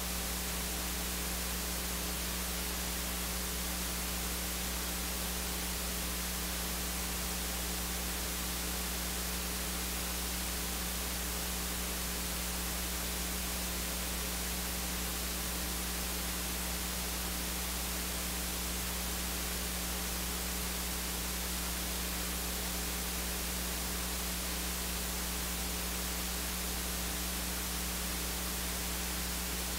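Steady electrical hiss with a low mains hum, unchanging throughout; no voices or movement on the stage come through.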